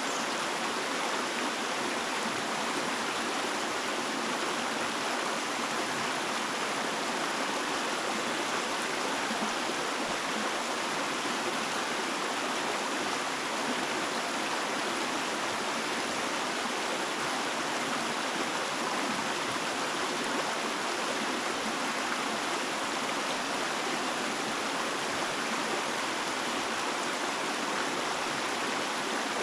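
Running water rushing steadily, an even, unbroken hiss with no birds or other events standing out.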